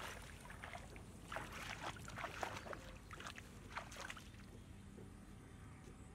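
Shallow muddy paddy water splashing and sloshing as hands and legs move through it, in irregular splashes that thin out after about four seconds.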